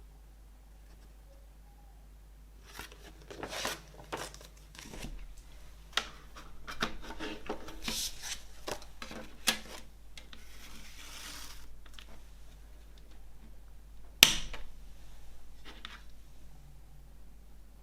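A CD album's packaging being handled: paper and plastic rustling and rubbing with scattered small clicks, a longer sliding rub past the middle, and one sharp plastic click about fourteen seconds in.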